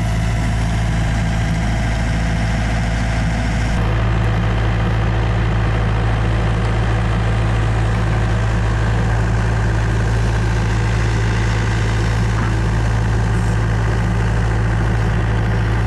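Takeuchi TB285 excavator's 70-horsepower diesel engine idling steadily, an even low drone. About four seconds in, the higher hiss above it thins out.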